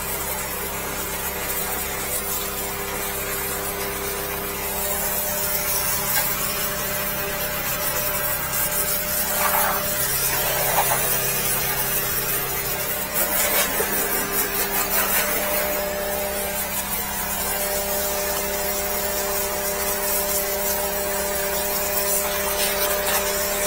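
Water spraying from a high-pressure sewer jetter hose. Under the steady hiss, the jetter's 13-horsepower engine and pump run with an even hum, and the spray grows louder for a few seconds around the middle.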